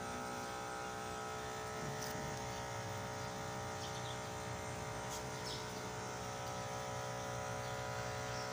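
Steady electrical hum of small powered equipment, with a deeper hum growing stronger about two seconds in and a few faint clicks.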